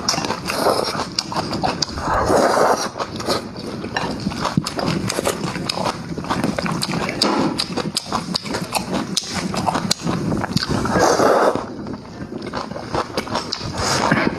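Close-up eating sounds: chewing and mouth smacking with many quick wet clicks, and a few louder noisy slurps or sucks about two seconds in and again near eleven seconds.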